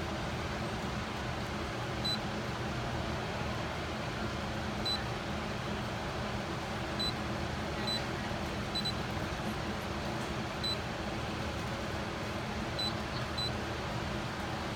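Short, high electronic beeps, about ten of them at uneven intervals, some in quick pairs, over a steady machine hum.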